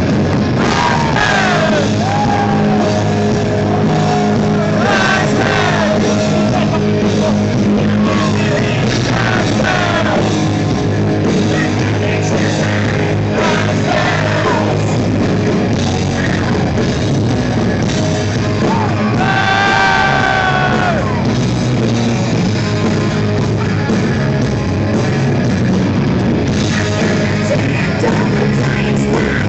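Loud rock music with a voice singing and shouting over a dense, steady band sound.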